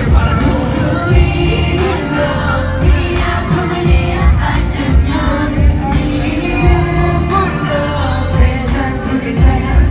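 Live K-pop performance: male vocalists singing over a loud amplified pop backing track with a steady, heavy beat, as heard in the venue through the sound system.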